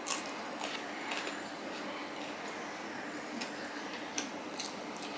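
Close-up eating sounds from a man eating fried hilsa fish and rice by hand: chewing with sharp, wet mouth clicks and lip smacks, scattered irregularly over a steady hiss.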